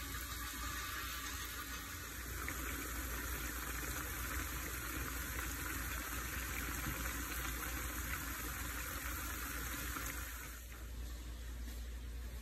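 Broth simmering around pork back ribs in a pan: a steady bubbling hiss that gives way to a fainter hiss about ten and a half seconds in.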